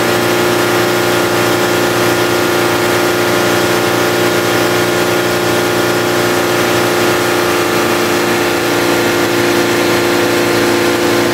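Mitsubishi 4G64 2.4-litre gasoline inline-four engine running steadily at a raised speed of about 3,500 rpm, held for an oil pressure reading.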